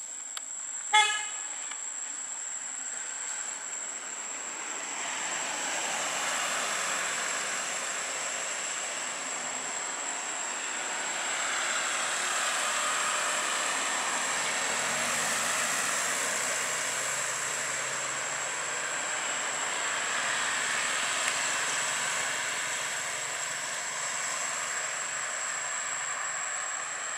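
Outdoor ambience: a short vehicle horn toot about a second in, then passing traffic that swells and fades, with a low engine drone from about the middle on. A steady high insect whine runs underneath.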